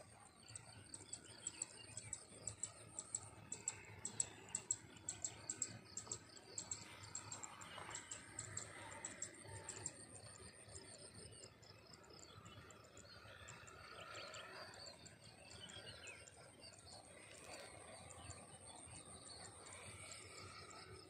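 Faint field ambience: rapid high chirps, densest in the first few seconds, over a steady very high-pitched insect trill, with birds calling now and then.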